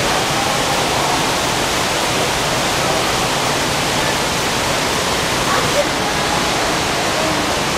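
Steady rush of a waterfall, with faint voices in the background.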